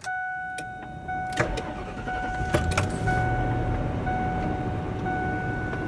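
A 1998 Ford Expedition's V8 is started and settles into a steady idle, heard from inside the cab. A steady electronic warning tone sounds throughout, and a few sharp clicks come in the first few seconds.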